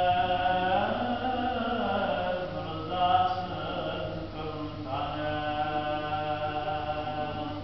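A solo male voice chanting an Islamic religious recitation in long, ornamented, held phrases, with a new phrase beginning about five seconds in.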